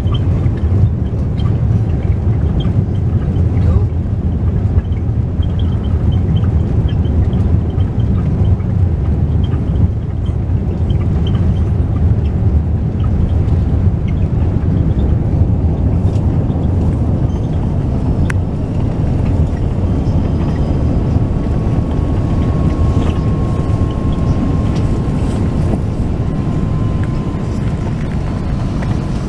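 Cabin noise inside an Airbus A380 as it lands and slows on the runway: a steady, loud low rumble that eases a little near the end. A faint thin whine comes in during the second half.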